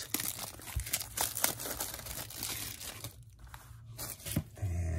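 Plastic shrink wrap crinkling and tearing as it is pulled off a cardboard box, dense crackling for the first two seconds or so, then a few scattered crackles.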